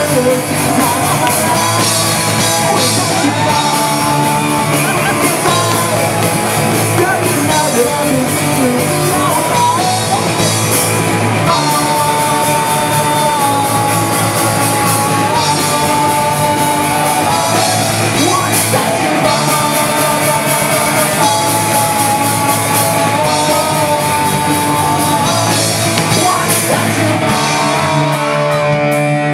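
Punk rock band playing live: electric bass, guitar and drum kit with a singer holding long notes over the loud, steady music.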